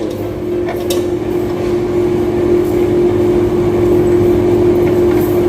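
Steady machine hum holding one constant tone, with a faint tick about a second in.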